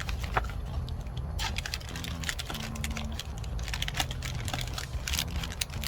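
MRE packaging being handled: an irregular run of crinkling and clicking, starting about a second and a half in.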